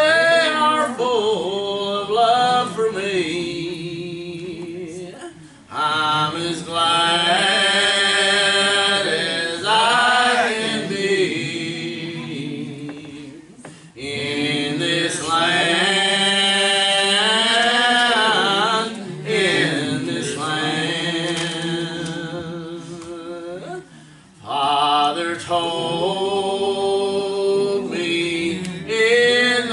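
Church singing: voices singing a hymn in long held phrases, with a brief pause between lines about every eight to ten seconds.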